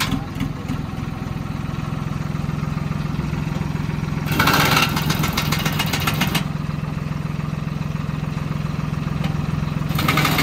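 Swaraj 963 FE tractor's diesel engine idling steadily. About four seconds in, a louder hissing noise lasts about two seconds.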